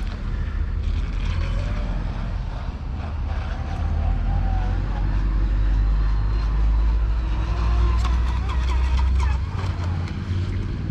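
Wind buffeting the microphone as a heavy low rumble that swells in the middle and eases near the end.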